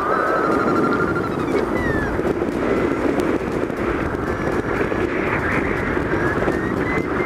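Steady wind rush over the microphone of a hang glider in flight, with a hang-gliding variometer's electronic tone sliding up and down in pitch and turning into quick even beeps near the end: the vario signalling lift in a thermal.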